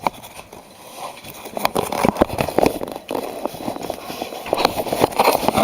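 Handling noise from a camera carried inside a plastic Tupperware tub: irregular clicks, knocks and rustling of the plastic, with footsteps, getting busier about a second in.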